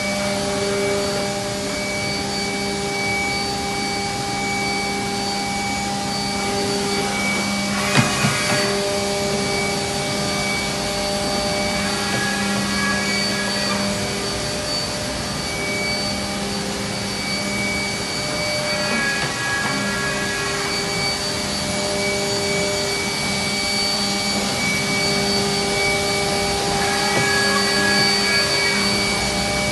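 Mazak VTC-300C vertical machining center running with its spindle at speed: a steady, layered mechanical whine, with extra tones coming and going a few times. There is a single sharp click about eight seconds in.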